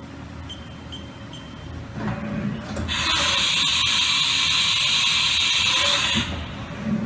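Haas VF-3YT CNC vertical machining center running, with a low steady hum. About three seconds in a loud, steady hiss starts abruptly and cuts off suddenly about three seconds later.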